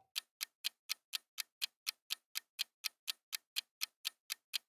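Clock-ticking sound effect marking a quiz countdown timer: sharp, even ticks, about four a second.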